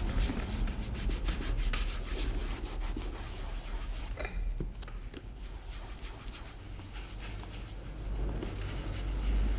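Leather shoe being polished by hand: quick repeated rubbing strokes over the leather, about three a second. About four seconds in they change to softer, sparser rubbing.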